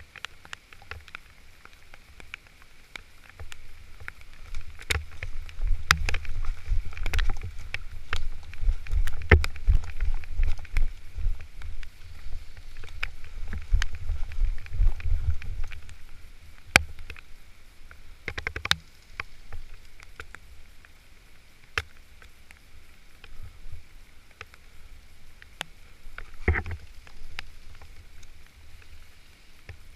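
Uneven low rumble of wind and movement buffeting a body-worn camera microphone, heaviest in the first half. Scattered sharp clicks and taps stand out across it.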